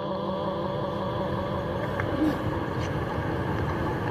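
Steady low rumble and hiss with a few faint clicks, with no voice: the background noise of a prayer congregation during the silent bow of the prayer.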